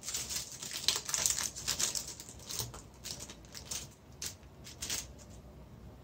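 Thin plastic wrapper crinkling as a cheese slice is peeled out of its packet: a run of sharp crackles that thins out after about three seconds and stops about five seconds in.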